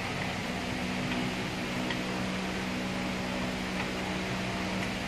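Steady mechanical hum with a low tone and a hiss, like a fan running, with a few faint clicks.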